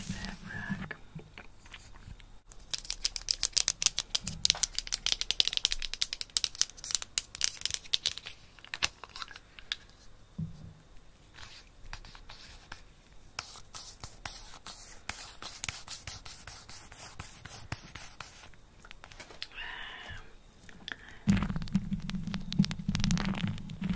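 Lipstick rubbed against the microphone, giving close, rapid crackling scratches in spells, with a heavier, lower rubbing noise starting near the end.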